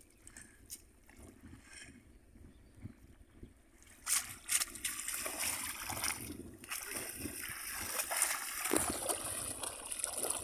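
Splashing and sloshing of shallow water as people wade and plunge bamboo fish traps into it, starting abruptly about four seconds in with a few sharp splashes, then continuing irregularly.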